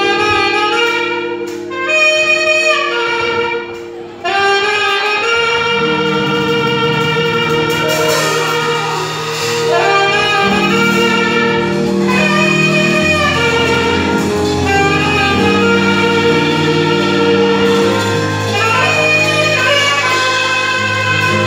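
Instrumental carol music: a melody of held notes over sustained low chords.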